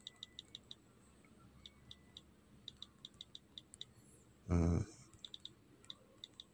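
Light, quick key-press clicks from a smartphone's on-screen keyboard, coming in irregular bursts as a command is typed. A short hum from a person's voice breaks in about four and a half seconds in.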